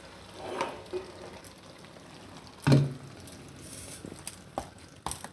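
Hot non-stick kadai of methi and gram-flour bhaji sizzling quietly, just taken off the gas, set down on the countertop with a clunk about two and a half seconds in, then a few light clicks near the end.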